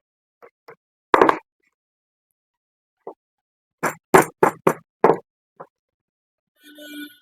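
Irregular sharp knocks and clicks of tools and parts being handled on the pump: a loud cluster a little over a second in, then a quicker run of about five knocks between four and five seconds in. A brief squeak or scrape comes near the end.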